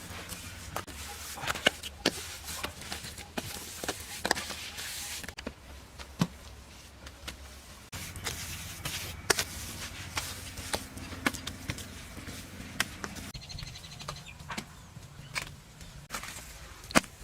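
Irregular sharp knocks and clicks of hand building work over a low steady hum.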